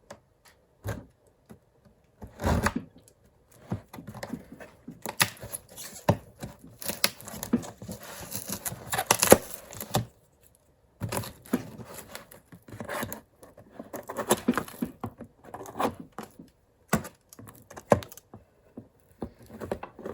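A large cardboard box being handled and cut open: irregular scraping and tearing of cardboard and tape, with scattered knocks and a heavier thump about two and a half seconds in.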